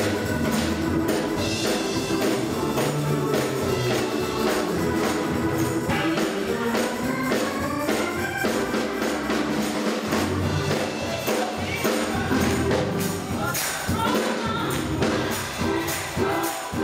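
Live gospel music: a church choir singing with band accompaniment and a shaken tambourine.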